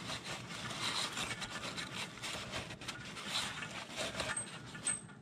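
A paper towel rubbing and wiping over the oily metal around the drain hole of a motorcycle's final-drive housing, in repeated strokes.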